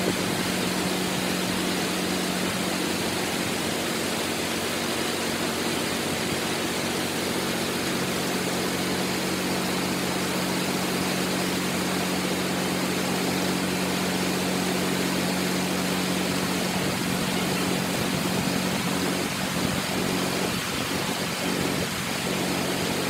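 Large crawler bulldozer's diesel engine running at a steady pitch under a constant hiss.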